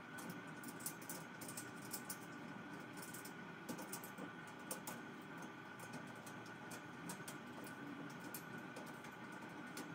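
Light, irregular clicks and taps of metal wire shelving being handled, as hands fit and adjust the top of the frame, over a faint steady tone.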